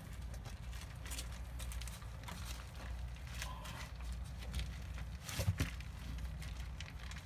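Clear plastic bag crinkling and rustling as gloved hands squeeze a liquid foam mixture out of it into a hole in the deck, with one sharper knock about five and a half seconds in, over a steady low rumble.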